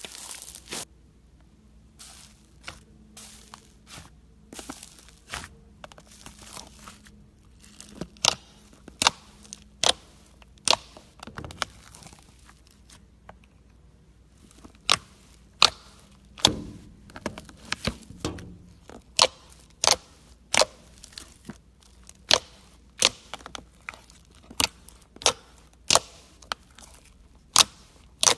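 Slime being squeezed and poked by hand: first a soft crinkling crunch from fluffy blue snow slime, then a run of sharp pops and clicks, about one or two a second, from glossy pink slime with foam beads pressed by fingers.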